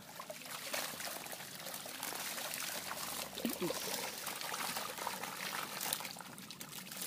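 Water sloshing, splashing and trickling as a fine mesh net is gathered up through shallow swamp water, with small fish splashing in the net's pocket.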